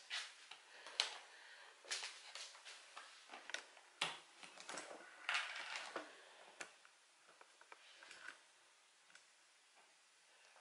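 Light clicks and taps of a metal spoon and a plastic cooking-oil bottle being handled as a spoonful of oil is poured out over a plastic mixing bowl; the taps stop about seven seconds in.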